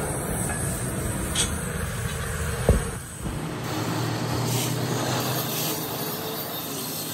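Oxy-fuel gas cutting torch flame hissing steadily as it works on steel plate, with a single knock about two and a half seconds in; the sound shifts just after three seconds, taking on a steady low hum.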